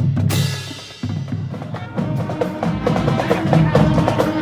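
Marching band playing: a cymbal crash rings out and fades at the start, then drums and brass take over from about two seconds in, with steady drum strokes under held brass notes.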